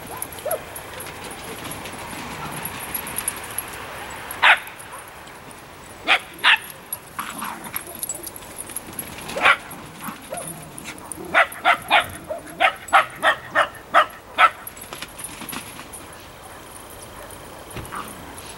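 Small dog barking: a few sharp single barks, then a quick run of about ten barks, roughly three a second, around the middle.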